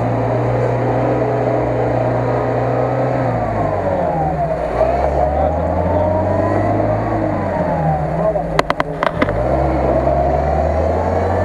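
UAZ-469 off-roader's engine running and revving up and down as it pulls through deep mud. Its pitch drops, then rises and falls, with a quick run of sharp knocks about nine seconds in.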